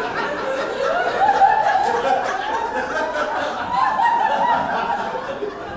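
Audience laughing, many voices overlapping in a sustained wave of laughter.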